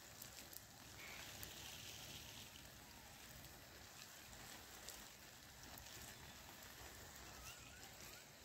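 Faint, steady patter and hiss of water from a garden hose spraying onto soil and leafy vegetable plants.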